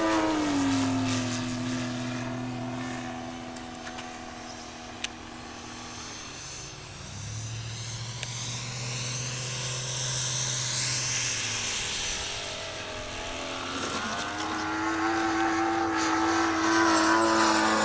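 Motors and propellers of radio-controlled model airplanes flying, with a steady whine. The pitch drops at the start as one passes close, a lower hum comes and goes in the middle, and a louder, higher whine builds near the end.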